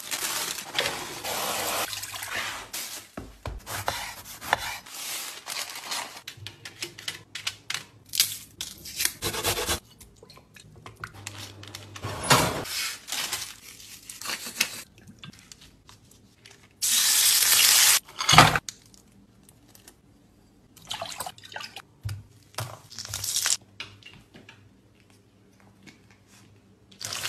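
A string of kitchen food-preparation handling noises: a plastic salad bag being cut open with scissors, rustling and clatter, with a loud hiss lasting about a second near the middle followed by a sharp knock.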